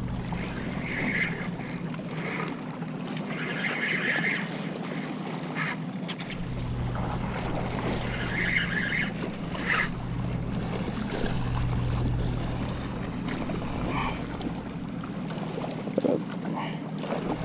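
Shimano Stradic SW 5000 XG spinning reel being cranked, its handle turning in short spells, over a steady low hum and wind on the microphone.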